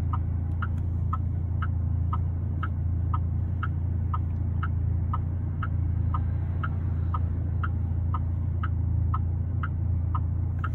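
A car's turn-signal or hazard flasher ticking about twice a second, alternating a higher and a lower click, over the steady low hum of an idling engine.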